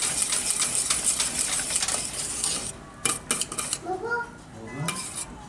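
Wire whisk stirring thick muhallebi pudding in a stainless steel pot: a fast run of scraping and clicking against the metal that stops about two and a half seconds in, followed by a few single taps.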